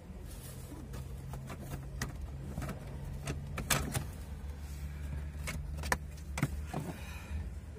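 Daewoo Nexia's engine idling steadily, heard from inside the cabin, with scattered sharp clicks and knocks as the steering wheel and column parts are handled.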